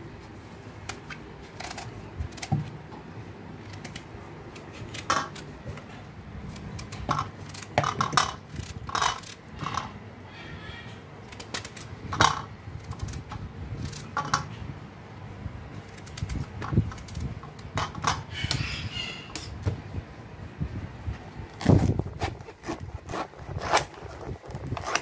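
A kitchen knife cutting a peeled taro root into chunks, the pieces dropped clinking into an aluminium colander: irregular taps and clicks, with two brief scraping passages.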